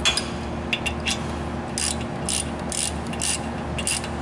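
Socket-wrench ratchet clicking in short bursts, about one every half second, as a brake caliper bolt is run down and tightened.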